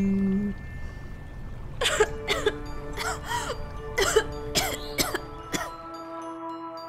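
A girl coughing in a fit, about seven coughs over four seconds, over soft background music.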